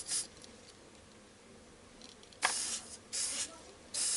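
Hot soldering iron tip sizzling as it is pressed into flux: a brief hiss at the start, then three more short sizzles in the second half, the first beginning with a sharp tick.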